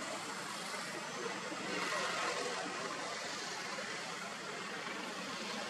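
Steady outdoor background hiss with no distinct calls or knocks, swelling slightly about two seconds in.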